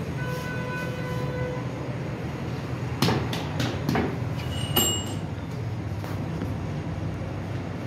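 Steady low mechanical rumble. A short held tone sounds over it in the first second and a half, and a few sharp knocks or clacks come about three to five seconds in.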